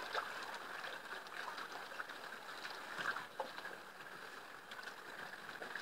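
Small waves lapping and splashing: a steady watery hiss with small irregular splashes, a few stronger ones about three seconds in.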